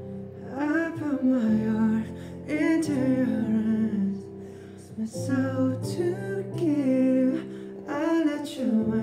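A slow song with guitar accompaniment and a sung vocal line, the voice coming in short phrases with brief pauses between them.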